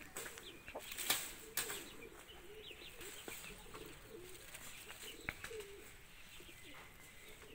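Pigeons cooing faintly in the background, with a few sharp knocks in the first two seconds and one more about five seconds in as a stone is pressed into place at the base of a cage frame.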